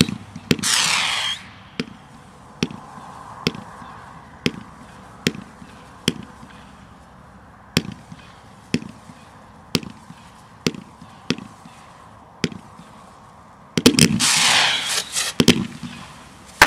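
Consumer firework cake firing: a loud burst of hiss and shots in the first second or so, then single shots about once a second, each a sharp pop. Near the end a loud rapid volley of shots with a hissing rush as a fan of comets fires at once.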